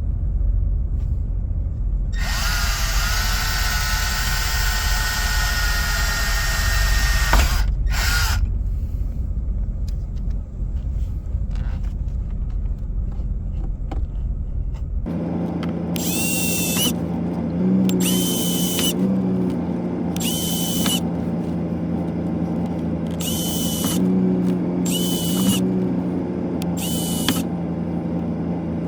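Power drill running: one long whirring run and a short blip, then a series of short bursts about a second each, like screws being driven.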